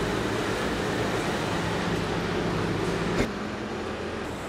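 Steady low engine hum and traffic noise from buses idling at the kerb. A single sharp click about three seconds in, after which the hum is a little quieter.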